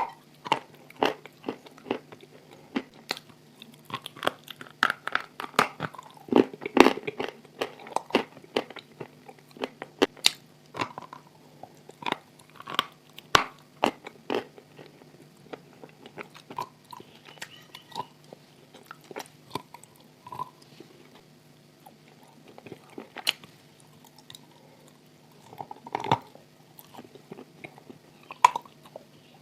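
Close-miked biting and chewing of crunchy, chalky lumps: irregular sharp crunches, densest in the first several seconds and sparser in the middle. A faint steady hum runs underneath.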